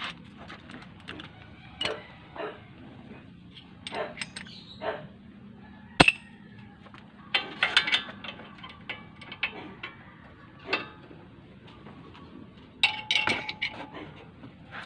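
Steel hand tools, a wrench and a socket bar, clinking and clicking against bolts and the front suspension as they are worked at the wheel hub, in scattered strokes with one sharp metallic knock about six seconds in and a quick run of clinks near the end.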